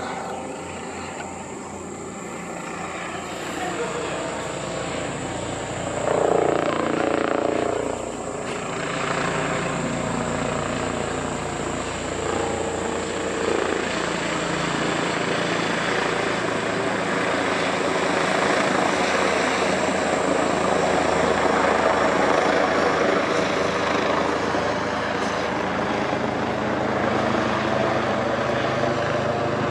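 Police helicopter flying overhead, a continuous steady engine-and-rotor sound that grows louder over the first several seconds and then holds.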